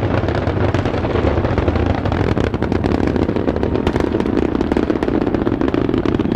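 Space Shuttle Discovery's rocket exhaust in ascent, solid rocket boosters and main engines burning together: a loud, steady rumble shot through with dense, ragged crackle that does not let up.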